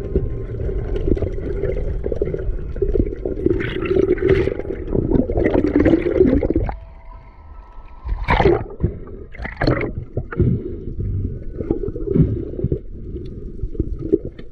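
Muffled underwater sound: water gurgling and sloshing around the camera. The steady rumble drops away for a moment about seven seconds in, followed by two louder bubbly splashes.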